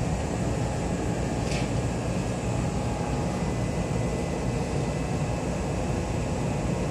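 Steady low hum and rumble of a Kintetsu express train standing before departure, its onboard equipment running. A short hiss about a second and a half in.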